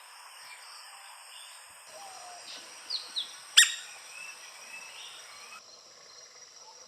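Birds chirping with a few short calls, and one sharp, loud note about three and a half seconds in, over a steady high hiss that cuts off abruptly after about five and a half seconds.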